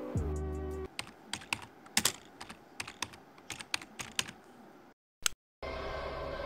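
Typing on a laptop keyboard: a run of irregular keystroke clicks, some closely spaced, after a short guitar music phrase ends. Near the end a low, eerie film-score drone begins.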